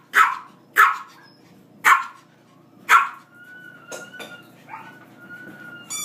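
Small dog barking sharply four times in about three seconds during a game of fetch, then whining in a thin, steady, high tone.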